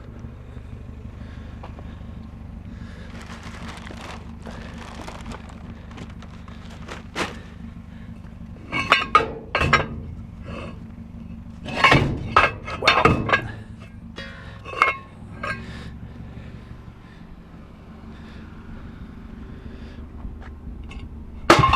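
Heavy metal scrap pieces being handled and set down, clanking and ringing in several clusters of knocks, loudest at the very end, over a steady low hum.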